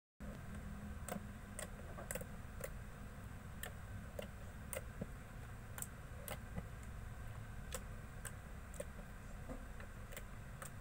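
Slime being mixed and kneaded by hand, giving off small sharp clicks about one or two times a second over a faint background.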